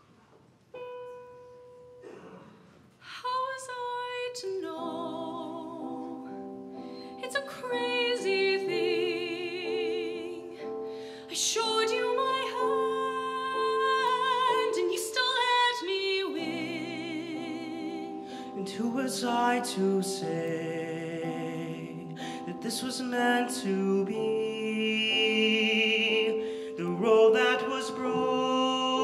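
A soloist singing with vibrato over instrumental accompaniment, a female voice for most of it and a male voice near the end. A single held note about a second in comes before the song builds.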